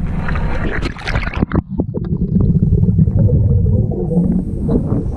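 Water splashing as a scuba diver goes under the surface, then a muffled underwater rumble with gurgling from the diver's regulator.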